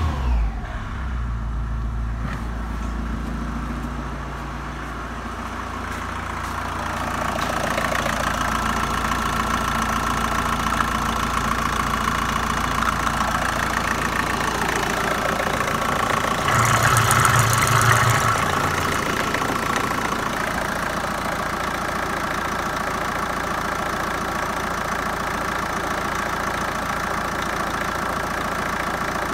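Opel Astra H's Z17DTH 1.7 CDTI four-cylinder turbodiesel running: it comes down from a short rev at the start and settles into a steady idle, heard first from the cabin and then louder under the open bonnet. A brief louder burst comes about 17 seconds in.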